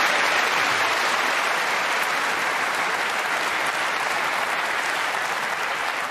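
Audience applauding a snooker shot: dense, steady clapping that eases off slightly near the end.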